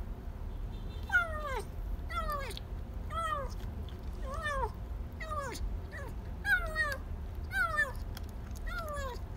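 Kitten meowing over and over, about one short meow a second, each call falling in pitch.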